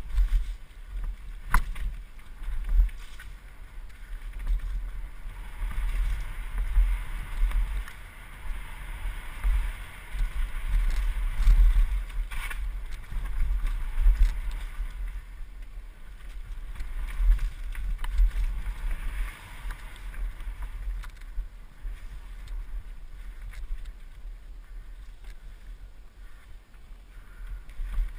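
Mountain bike descending a rough dirt trail at speed, heard from a helmet-mounted camera: wind buffeting the microphone in uneven low gusts, over a steady hiss of tyres rolling on dirt and roots, with a few sharp clacks from the bike over bumps.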